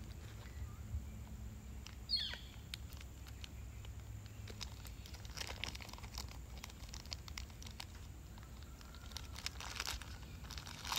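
Thin clear plastic blind bag crinkling and crackling in a child's hands, in scattered bursts that thicken around the middle and near the end. One brief falling squeak about two seconds in.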